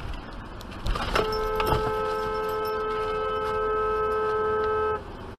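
A car horn sounding in one long honk of about four seconds, starting just after a knock about a second in, over the car's road noise. It is a warning honk at a driver who cut in front.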